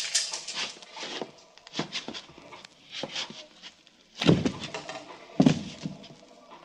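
Radio-drama sound effects of a sword fight: a run of sharp clashes of blades and scuffling steps, then two heavy thuds about four and five and a half seconds in.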